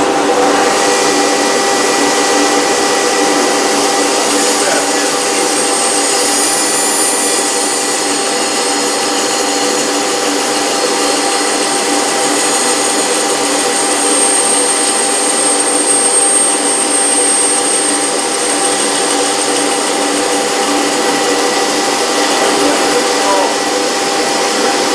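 A woodshop power tool running steadily without a break, a constant machine hum with several held tones.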